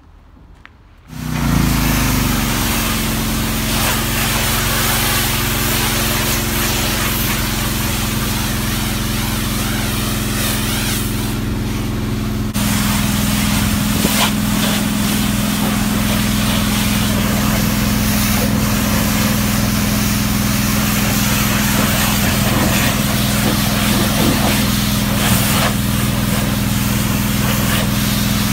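An engine-driven pressure washer starts about a second in and runs steadily, with the hiss of the high-pressure water spray over it. About halfway through, the engine note shifts slightly and gets a little louder.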